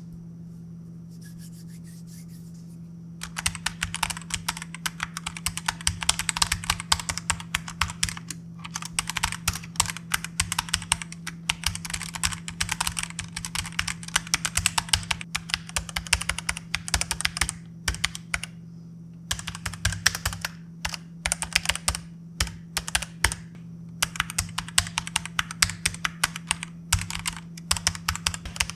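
EvoFox Katana Pro 75% mechanical keyboard with red (linear) switches being typed on fast: a dense clatter of keystrokes starting about three seconds in, broken by a few brief pauses. A steady low hum runs underneath.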